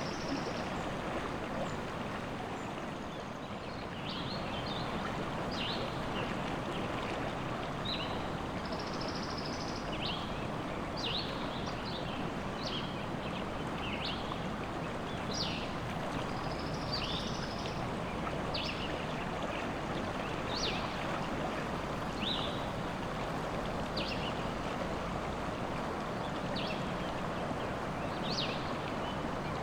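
River water rushing steadily, with small birds giving short high chirps and brief trills every second or two over it.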